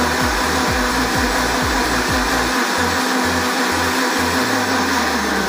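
Mondial Turbo countertop blender running steadily at speed, blending a smoothie of fruit, oats and water. Background music with a steady beat plays underneath.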